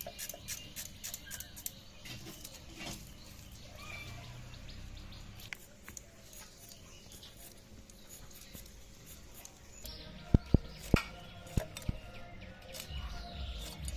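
Cutting on a boti, the fixed curved kitchen blade: a quick run of crisp slicing strokes through onion at the start, then scattered faint clicks, and a few sharp knocks about ten seconds in, the loudest sounds here.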